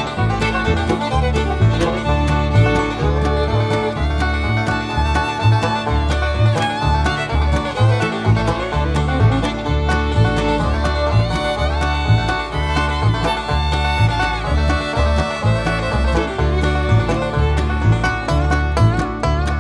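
Background music: an upbeat bluegrass-style tune with banjo, fiddle and guitar over a steady bass beat.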